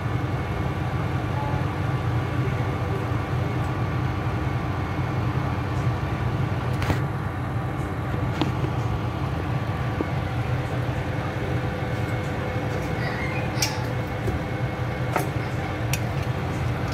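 Steady low mechanical hum, with a few faint sharp clicks.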